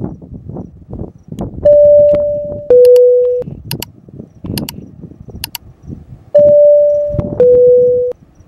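Electronic two-tone chime, a high tone stepping down to a lower one, sounding twice about four and a half seconds apart. Underneath there is irregular low knocking and rustling, with a few sharp clicks between the two chimes.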